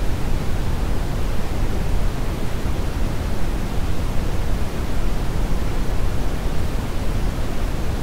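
Brown noise, a calibrated test signal for headphone measurements: a steady, even rumble-like hiss whose level falls off toward the high end, with most of its energy in the bass.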